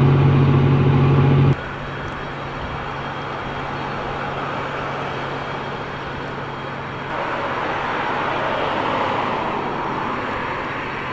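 A vehicle engine idling with a steady low hum, cutting off abruptly about a second and a half in. Then steady road traffic noise, swelling louder from about seven seconds in as a vehicle passes.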